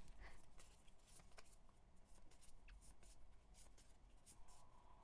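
Faint rustling and light clicks of a stack of glossy paper photocards being leafed through one card at a time in the hands.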